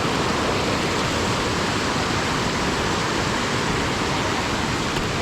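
Steady rush of water pouring down a small waterfall, an even, unbroken hiss.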